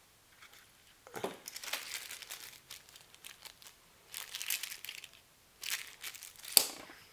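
Small clear plastic bag crinkling as it is handled, in several bursts, with a sharp knock near the end.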